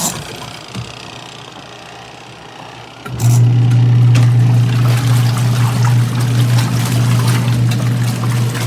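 BANGSON compact twin-tub portable washing machine running: its motor's steady low hum stops, and water swishes in the tub for about three seconds. The hum then starts up again, the stop-and-restart of the wash cycle.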